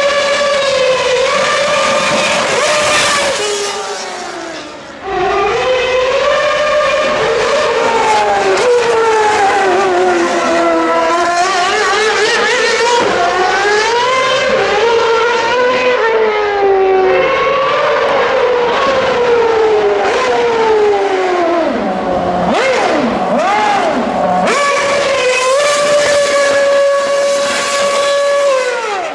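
Red Bull RB7 Formula One car's 2.4-litre Renault V8 revving hard, its pitch sweeping up and down as the car accelerates and lifts, with a brief dip about five seconds in. Near the end it holds at steady high revs while the rear tyres spin in donuts.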